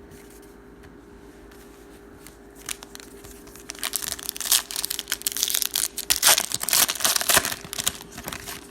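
Trading-card pack wrapper being torn open and crinkled. After a quiet start, a dense run of tearing and crackling begins about three seconds in and stops shortly before the end.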